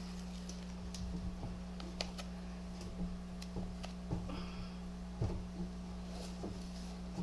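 Scattered light clicks and knocks of hands working inside an empty reptile enclosure, over a steady low hum.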